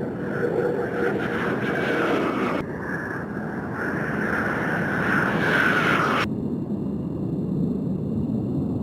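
F-16 fighter jet's turbofan engine roaring, with a whine in it that falls slightly in pitch. The higher part of the sound cuts off abruptly twice, about two and a half seconds in and about six seconds in, as one recording is spliced to the next.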